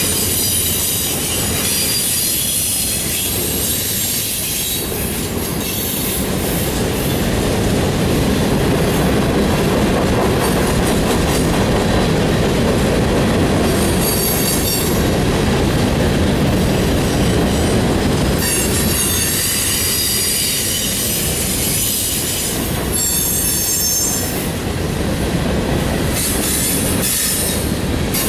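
Freight cars of a Norfolk Southern mixed freight train rolling past with a steady rumble of steel wheels on rail and some clickety-clack. High-pitched wheel squeal comes and goes in several spells.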